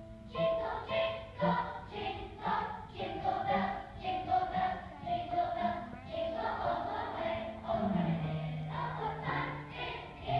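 Children's choir singing, coming in strongly about a third of a second in after a quieter lead-in.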